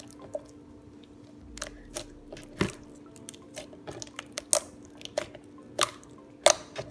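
Fingers squeezing and poking a white slime studded with coloured beads, making about ten sharp, irregular pops and clicks as air pockets in the slime burst. A faint steady hum runs underneath.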